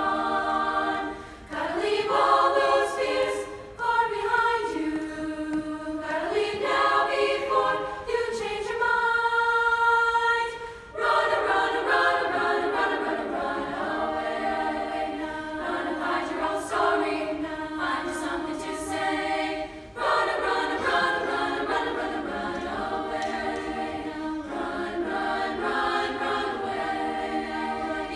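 High school select women's choir singing in several-part harmony, with short breaks between phrases and a long held chord about nine seconds in.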